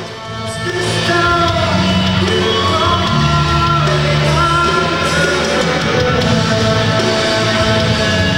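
Live rock band playing loud: distorted electric guitars, bass and drums with a male singer. The volume dips briefly at the start, then carries on at full level.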